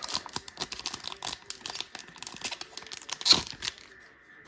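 Trading card booster pack wrapper being torn open and crinkled: a run of crackling, with one louder rip about three seconds in before it settles.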